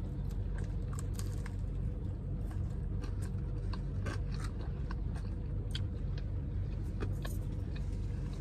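Close-up chewing of a crispy, breaded bite of food, with scattered small crunches, over a steady low hum of the car cabin.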